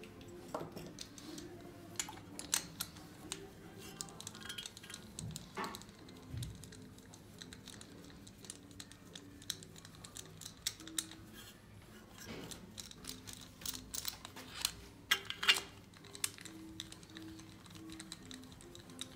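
Scattered light metallic clicks and taps from hand work on the cylinder head of a Ford 2.0 turbodiesel engine, as the compression gauge is moved on to the next cylinder. A few sharper clicks come in the second half.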